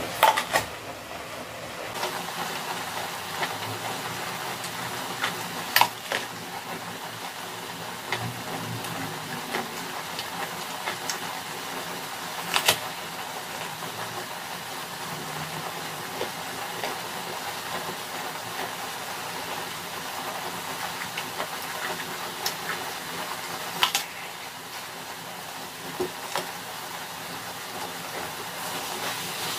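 Tomato scrambled eggs sizzling steadily in a frying pan on a tabletop burner. A crisp bite into an apple comes about half a second in, followed by occasional sharp clicks of chewing.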